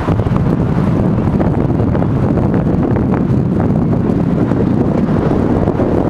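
Wind buffeting the camera's microphone, loud and steady, heaviest in the low end.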